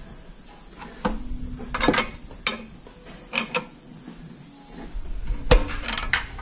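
Metal tools and parts clinking and clanking under a car: a few separate knocks spread out, with the sharpest one about five and a half seconds in, followed by a quick cluster of clinks.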